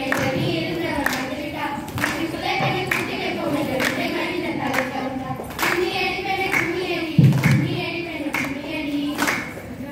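A group of girls singing a melody together in unison, with hand claps keeping the beat.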